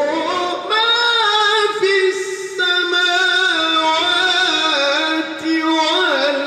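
A man reciting the Quran in the melodic tilawah style, holding long, high notes with ornamented turns and pausing briefly between phrases.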